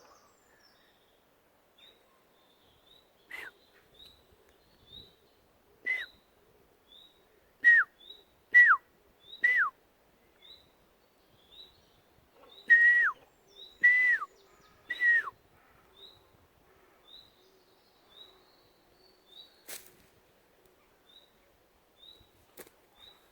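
An unfamiliar bird calling: a short whistled note that holds and then drops sharply in pitch, repeated eight times, with two quick runs of three notes in the middle. Under it, faint short high chirps come about once a second.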